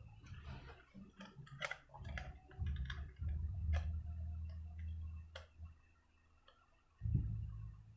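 Scattered small clicks and taps from a 2.5-inch SATA SSD and a slim laptop drive caddy being handled and fitted together, over a low handling rumble that stops a little past halfway.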